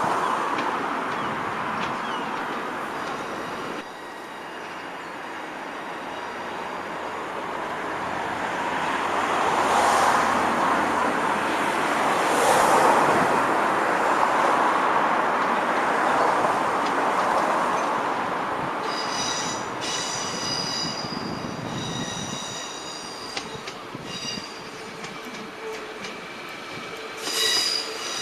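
A train moving through the station, its rumble swelling and then easing. From about two-thirds of the way in, its wheels squeal in short high-pitched stretches, loudest near the end.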